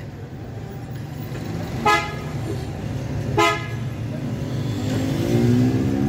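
Car horn giving two short toots about a second and a half apart, over a steady low hum.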